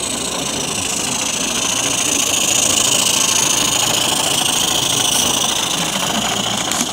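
Small live-steam model locomotive running past close by, a steady steam hiss with its running gear, swelling as it draws level and then easing off.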